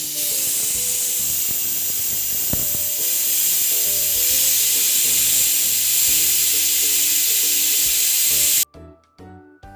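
Pressure cooker whistle: steam forces up past the weight valve in a loud, steady hiss that cuts off abruptly about nine seconds in. It is the single whistle that tells the rice and vegetables are cooked.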